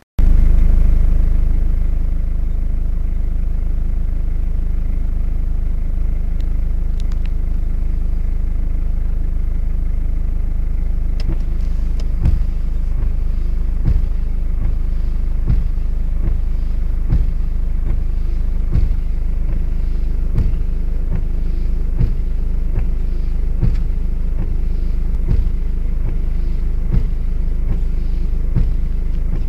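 A car driving, heard from inside: a steady engine and road rumble. From about a third of the way in, soft knocks repeat about every second and a half.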